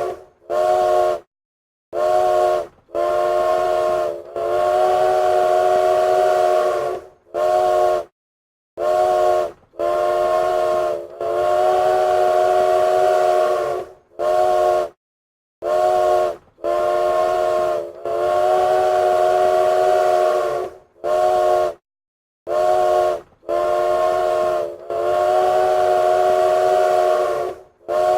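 Train whistle sounding a chord of several tones, blown over and over in a pattern of two short blasts and one long blast, with a breathy hiss under the tones.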